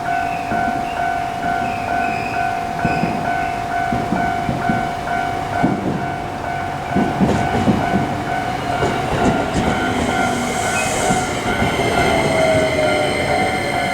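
Japanese railway level-crossing electronic bell ringing its repeating 'kan-kan' at about two to three dings a second while a train passes, its wheels clattering over the rail joints. Near the end a tone slides down in pitch.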